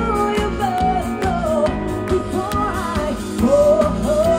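A band playing a pop song live, with a voice singing a gliding melody over the band's steady backing.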